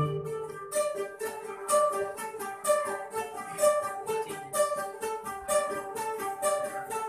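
Rondalla string ensemble of bandurrias, octavinas, guitars and bass playing a light passage of evenly plucked chords and melody notes.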